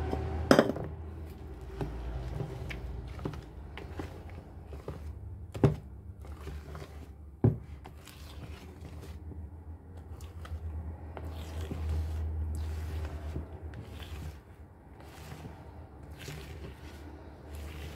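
Wire whisk stirring chopped nuts into thick cake batter in a mixing bowl: soft scraping and small clicks of the whisk against the bowl, with a few sharper knocks, one near the start and two around six to seven and a half seconds in. A steady low hum runs underneath.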